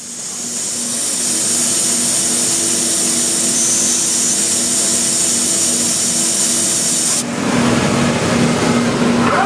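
Homag CNC router running, with a steady high hiss over a few faint steady hums. About seven seconds in the high hiss cuts off, leaving a rougher, lower machine noise.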